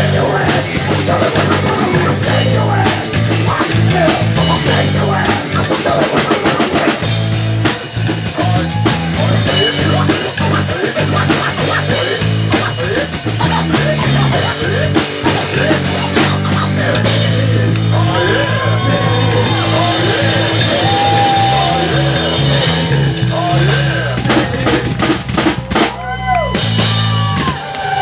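Live rock band playing: drum kit, bass and electric guitars, with a lead line of bending notes in the second half.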